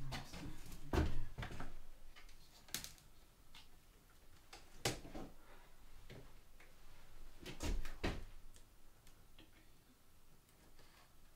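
Long thin strips knocking and clattering against a log wall as they are handled and pressed into place, in a handful of scattered sharp knocks with quieter handling sounds between.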